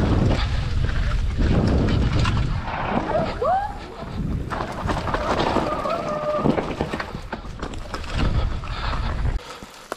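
Mountain bike riding fast down a dirt forest trail: wind buffeting the microphone and the bike clattering over the bumps, with a couple of short squeaky pitched sounds in the middle. The wind rush drops away just before the end.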